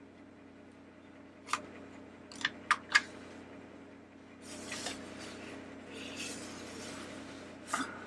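Hard plastic parts of a Mr. Christmas animated teacup being handled: four sharp clicks in quick succession, then plastic rubbing and scraping as the base is turned and seated, with one more click near the end.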